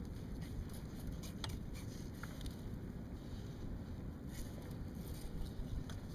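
Steady low wind rumble on the microphone, with a few faint clicks and taps as pliers and a landing net are handled in a kayak.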